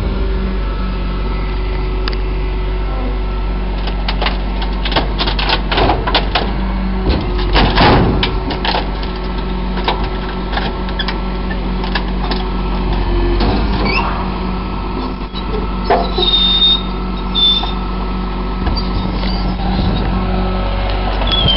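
Iveco ACCO rear-loader garbage truck running while its hydraulic bin lifter holds and shakes a wheelie bin over the hopper. A steady engine and hydraulic hum runs under a quick run of clanks and knocks, thickest from about four to nine seconds in, and short high squeaks come near the end.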